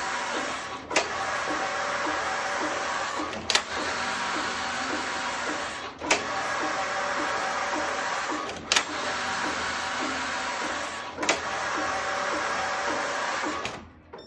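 The motor-driven carriage of a Passap E8000 knitting machine runs back and forth across the needle beds, knitting rows of a tubular hem. It makes a steady running noise, with a sharp clack about every two and a half seconds as the carriage reverses at the end of each row. It stops abruptly near the end.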